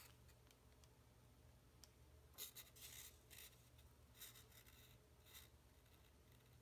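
Near silence: room tone with a steady low hum, and a few faint, brief rustles and scrapes of hands handling a balsa wing as it is pressed onto a glued balsa fuselage stick.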